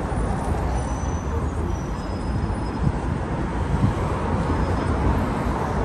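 Busy city street ambience: steady road traffic noise with a low rumble.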